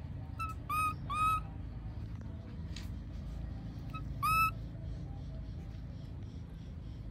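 Baby long-tailed macaque giving three short high-pitched coo calls: two in quick succession about a second in, and one more about four seconds in. Each is a clear note that rises slightly and levels off, heard over a steady low background rumble.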